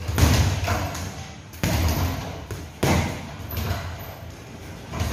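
Boxing gloves hitting a hanging heavy punching bag: three sharp thuds, a second or more apart, each fading quickly.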